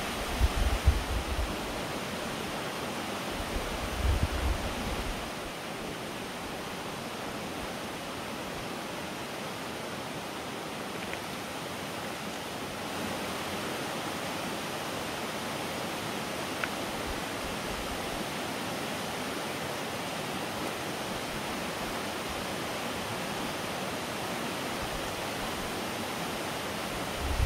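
Steady rushing outdoor background noise, with a few low rumbles in the first five seconds.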